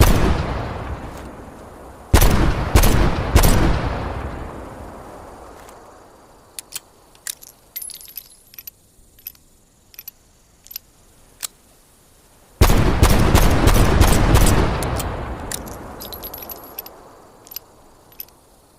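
Magnum revolver shots with long echoing tails: one at the start, three in quick succession a couple of seconds in, then a rapid string of shots in the second half. Small metallic clicks and clinks come in the lulls between the groups of shots.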